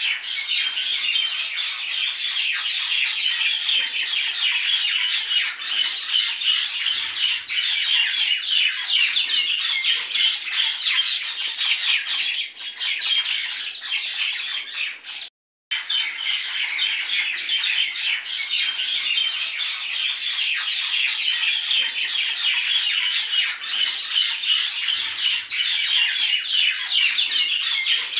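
Dense, continuous chatter of many birds chirping and squawking together, with a brief cut-out about halfway through.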